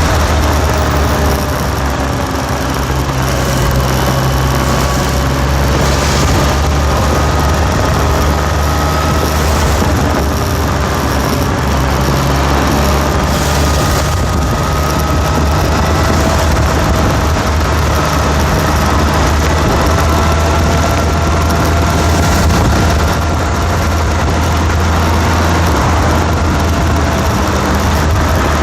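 A motor or engine running steadily: a constant low drone with a faint whine above it that drifts slowly up and down in pitch.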